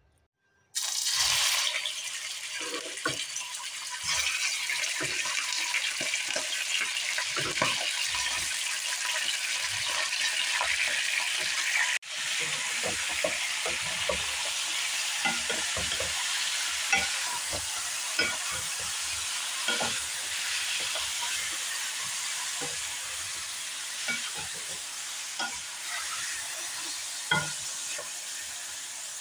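Raw chicken pieces sizzling in hot oil in a metal karahi, the sizzle starting suddenly about a second in. A spatula stirs the pieces throughout, with many short scrapes and knocks against the pan.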